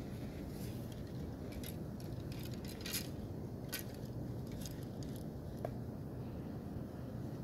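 Fishing rod being slid into its cloth rod sleeve: soft fabric rustles and a dozen or so small clicks and taps scattered through the first five seconds, the sharpest about three seconds in, over a steady low background rumble.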